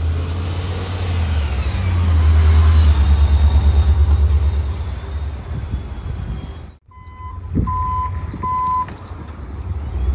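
Rear-loader garbage truck on a Ford Super Duty chassis: its engine runs as a low rumble that swells and pulses rapidly for a couple of seconds. About seven seconds in, its reversing alarm beeps three times over the engine.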